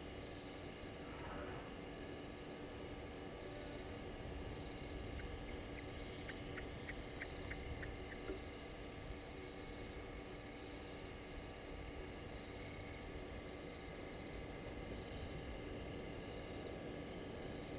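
Night insect chorus of crickets: a steady, fast, high-pitched pulsing trill. A couple of short groups of higher chirps and a brief run of clicks come about five to eight seconds in.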